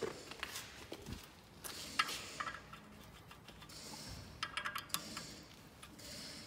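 Metal hand tools clinking and clicking as a socket and bit are handled at the brake disc hub. There are scattered single clinks and a short, quick run of clicks about four and a half seconds in.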